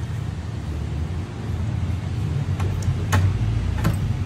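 A vehicle engine rumbles low and steadily, swelling in the middle. Over it come a few sharp metal clicks as a T-handle socket wrench turns on the scooter's front axle.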